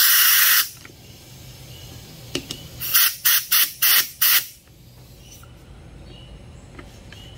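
Compressed-air blow gun hissing into a small-engine carburetor's passages to blast out trash and fuel. A long blast cuts off about half a second in, and five short blasts in quick succession come around three to four seconds in.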